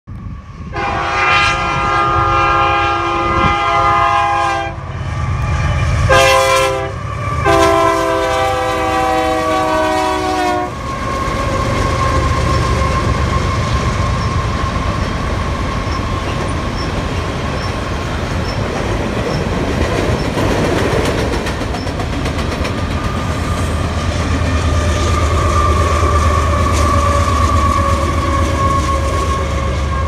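Freight diesel locomotives' multi-chime air horn sounding several loud blasts over the first ten seconds, then a long grain train of hopper cars rolling across a bridge: steady clickety-clack and rumble of the wheels with a steady high ring.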